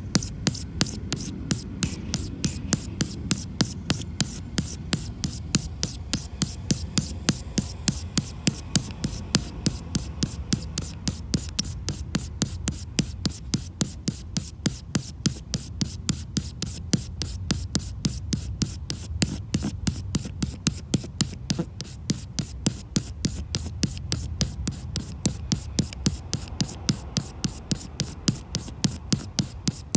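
Razor blade scraping excess cured windshield-repair resin off the glass: quick, even strokes, about three clicks a second, over a low rumble.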